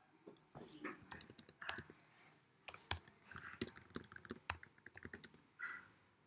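Faint typing on a computer keyboard: quick, irregular keystrokes with short pauses between runs of keys.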